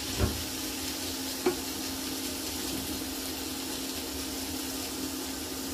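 Diced vegetables and spinach sizzling in a frying pan on an induction hob while a spatula stirs them, with two knocks of the spatula against the pan in the first second and a half. A steady low hum runs underneath.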